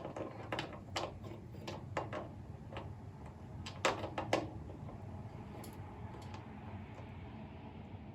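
Faint, scattered clicks and taps of an LED bulb being pushed into a turn-signal bulb holder and the holder being handled, with two sharper clicks about four seconds in.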